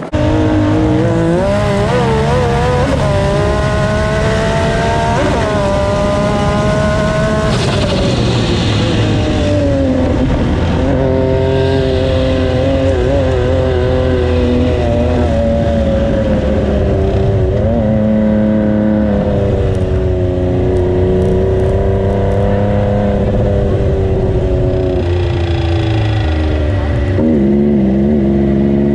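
Turbocharged Yamaha YXZ1000R side-by-side's inline three-cylinder engine running hard, heard from on board. Its pitch climbs in steps through the gears for the first several seconds, drops, then rises and falls with the throttle.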